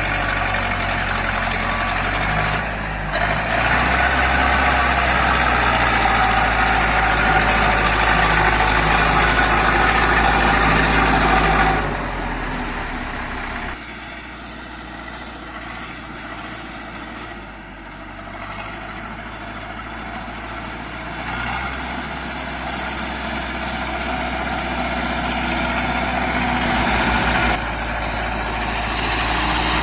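Zetor 5745 tractor's diesel engine running loud and steady, then easing off sharply about twelve seconds in to a quieter, lower run, and building back up gradually through the second half.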